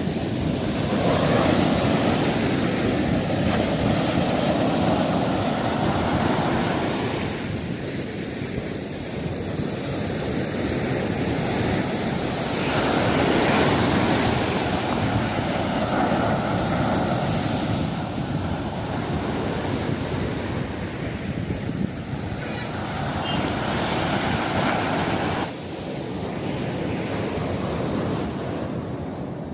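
Sea surf breaking on the beach, swelling and fading every few seconds, with wind rumbling on the microphone. The level drops suddenly about 25 seconds in.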